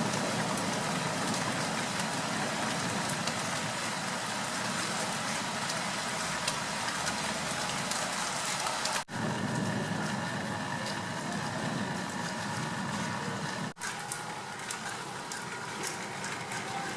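Steady rain falling at the start of a thunderstorm, with a rumble of city traffic underneath. The sound drops out sharply for an instant twice, about nine and about fourteen seconds in.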